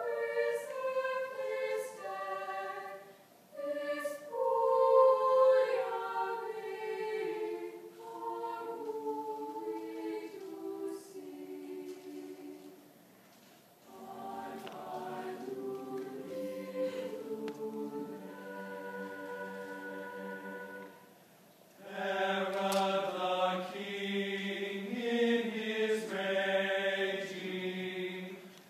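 Mixed high school choir singing live in sustained chords, in phrases divided by brief breaks; the last phrase, from about 22 seconds in, comes in louder and fuller.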